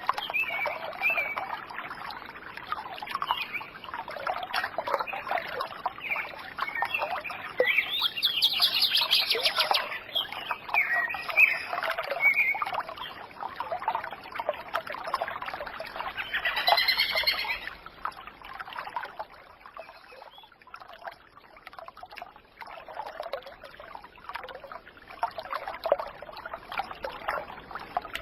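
Birds chirping over steadily trickling water, with brighter runs of calls about a third of the way in and again past the middle.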